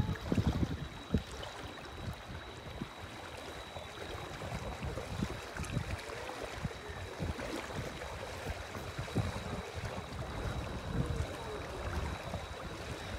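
Water sloshing and lapping around a slowly moving boat, with irregular wind rumble on the microphone.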